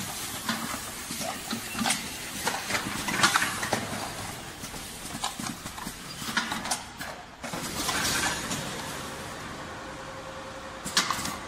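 Polymer clay (plasticine) filling and packing machine running, its mechanism clacking over and over above a steady hiss of machine noise.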